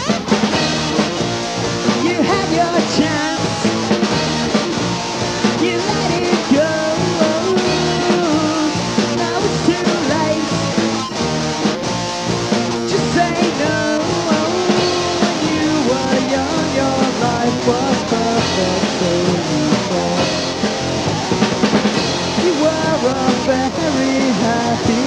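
Guitar-driven fuzz-pop rock band recording playing from a 1990s cassette demo tape.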